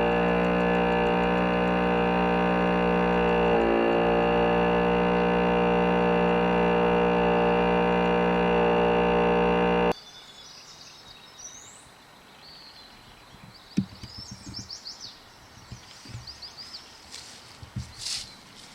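Distorted electric guitar music for about ten seconds, cutting off abruptly to a quiet outdoor background with birds chirping and a few soft knocks.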